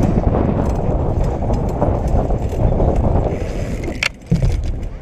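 BMX bike rolling fast across a skatepark surface, a steady tyre rumble. About four seconds in, as the bike reaches the quarter pipe, there is a sharp click and then a low thump.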